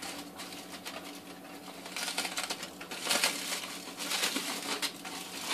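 Aluminium foil crinkling and crackling as a foil-wrapped parcel is unwrapped by hand, quieter at first and louder in uneven clusters from about two seconds in.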